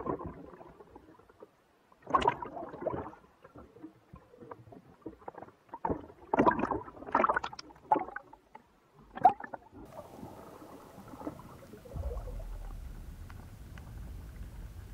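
Sea water sloshing and gurgling around a camera at the waterline in choppy surface waves, in irregular splashes. After about ten seconds the splashing stops, leaving a faint steady background with a low drone.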